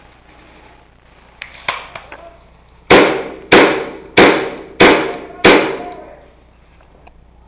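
KWA MP7 gas-blowback airsoft gun fired five times in semi-auto, evenly spaced about half a second apart, each sharp crack ringing briefly in a small plywood room.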